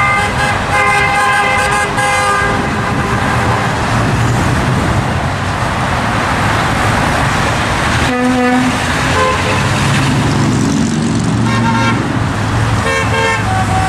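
Steady roar of interstate highway traffic passing below, with vehicle horns honking over it. A long horn blast runs through the first two seconds, then short toots come about eight seconds in, around eleven and a half seconds, and near the end.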